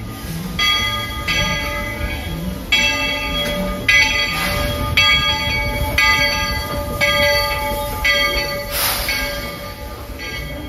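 Baldwin-built steam locomotive rolling into the station with its bell ringing, a fresh ring about every second, over the low rumble of the train. A short hiss comes about nine seconds in.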